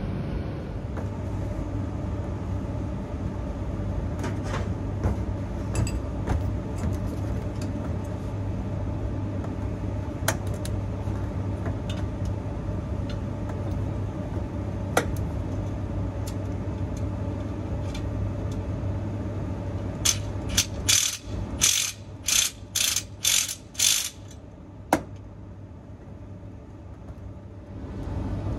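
Ratchet spanner tightening the bolts of an air-conditioner condenser wall bracket. Scattered clicks are followed, about two-thirds of the way in, by a run of about eight quick ratcheting strokes. Under it runs a steady low hum that drops away as the strokes begin.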